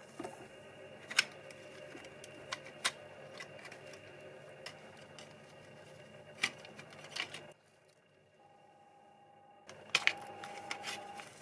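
Scattered sharp clicks and taps of a rusty diecast model car being taken apart by hand: small tools and the plastic interior knocking against the metal body. The clicks come one at a time, with a quieter gap a little past halfway and a quick cluster near the end.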